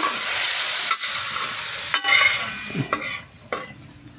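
Onion-and-spice masala gravy sizzling on a large iron tawa while a spatula stirs and scrapes through it, with a knock of the spatula every second or so. The sizzle dies down sharply about three seconds in.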